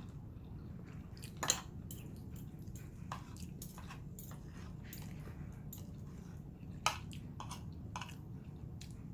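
A person chewing food, with scattered short mouth clicks and smacks, over a steady low hum.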